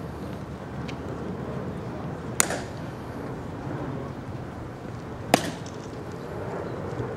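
Background murmur of a waiting outdoor crowd, broken twice by a sharp click with a short ringing tail, about three seconds apart.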